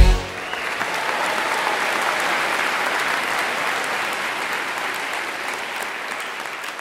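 Circus audience applauding, a dense steady clapping that slowly fades over the last few seconds.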